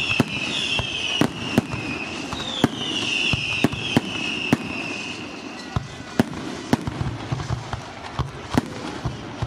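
Aerial fireworks going off: sharp shell bursts at irregular intervals, about one or two a second. A high, wavering whistle runs alongside them and fades out about halfway through.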